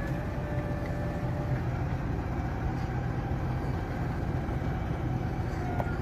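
Case IH Puma 230 CVX tractor's six-cylinder diesel engine running steadily under load as it pulls a three-furrow plough through hard soil. A faint high whine sits above the low engine drone at times.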